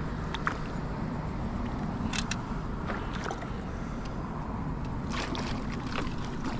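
Water sloshing with a few light splashes as someone wades through a shallow, muddy pond, over a steady low rumble.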